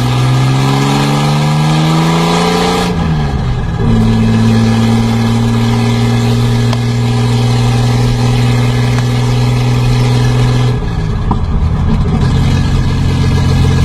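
A V8 engine being revved. Its speed climbs slowly for about three seconds and drops back, then is held steady at raised revs for about seven seconds before falling to a lower, steady speed near the end.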